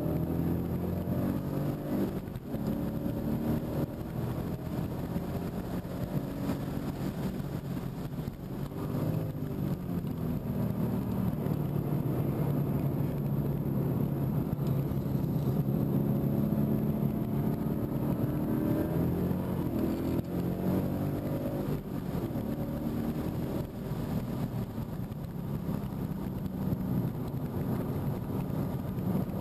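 2015 Mustang GT's 5.0-litre V8 being driven hard on a track lap, heard from inside the cabin. Its note rises and falls over and over as the car accelerates and comes off the throttle.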